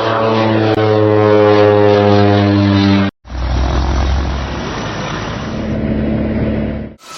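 Propeller-driven military aircraft engine passing by, its tone falling steadily in pitch. About three seconds in, the sound cuts abruptly to a rougher, deeper engine noise, which cuts off again near the end.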